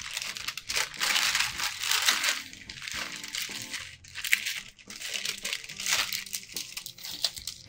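Parchment paper crinkling and rustling as it is peeled back off a freshly ironed beeswax wrap. Soft background music underneath.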